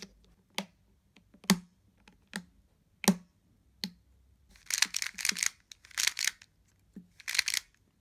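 Plastic pieces of an MGC Square-1 puzzle clicking and snapping as the puzzle is taken apart and handled: about half a dozen sharp single clicks, then quicker rattling runs of clicks in the second half.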